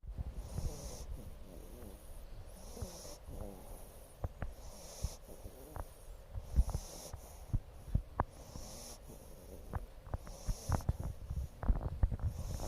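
Jack Russell cross puppy snoring in its sleep, a wheezy breath roughly every two seconds, with scattered soft knocks.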